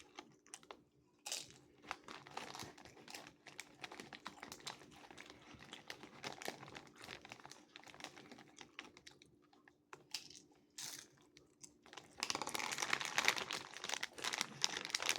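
A chip bag crinkling as chips topped with taco sauce and cheese are dug out of it by hand and eaten, in scattered rustles and clicks that grow denser and louder about twelve seconds in.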